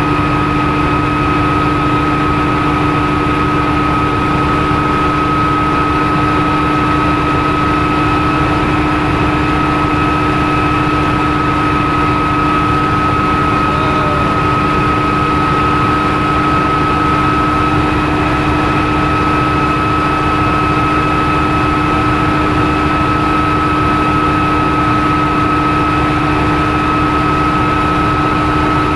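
Bell OH-13 Sioux helicopter's piston engine and rotor heard from inside the cockpit in steady cruise: a constant loud drone with a steady whine on top, unchanging throughout.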